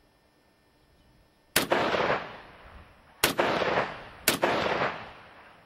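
Three shots from a Chinese Type 56 SKS semi-automatic rifle in 7.62x39, the first about a second and a half in and the next two closer together, each followed by a long fading echo.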